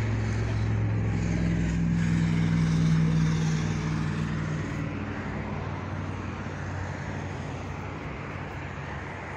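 A motor vehicle's engine running close by, loudest about three seconds in and fading away by about five seconds, over steady traffic noise.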